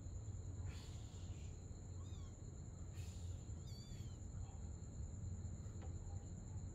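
A kitten gives two short high mews, about two seconds in and again near four seconds, with two brief scuffling swishes between them. Under it runs a steady high insect trill, typical of crickets, and a low hum.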